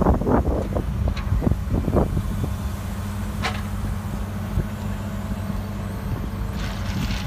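Diesel engine of a Volvo wheeled road-rail excavator running steadily, with several clanks and knocks in the first two seconds as its sleeper-laying attachment handles concrete sleepers. A sharp click comes about three and a half seconds in, and a short hiss near the end.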